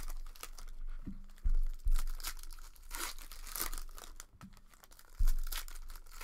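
Trading card pack wrappers being torn open and crinkled in the hands, with an irregular crackle. Three dull thumps stand out: two close together about a second and a half in, and one near the end.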